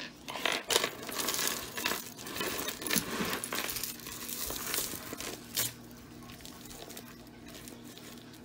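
Costume jewelry clinking and rattling as pieces are handled: a busy jumble of small metallic clicks and scrapes for the first five seconds or so, then much quieter.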